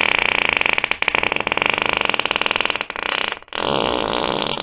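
A person farting in one long, rapidly fluttering fart, which breaks off briefly about three and a half seconds in before a second long fart starts.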